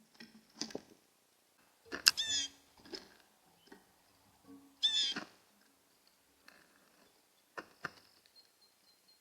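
Red-bellied woodpecker giving two rolling calls, about three seconds apart, with a few sharp taps before and after them.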